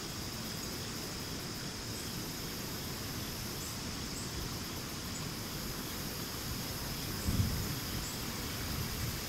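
Steady chorus of insects such as crickets, an even high trill, with a short low thump about seven seconds in.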